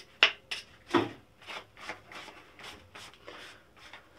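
Gloved hands rubbing a freshly ground metal nail: a quick run of short, irregular rubbing and scraping strokes, about three a second, the first ones the loudest.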